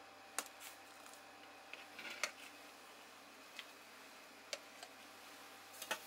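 Metal kitchen tongs clicking and tapping against a metal pot and a plastic colander as boiled pieces are lifted out, a handful of light, separate clicks over a faint steady hum.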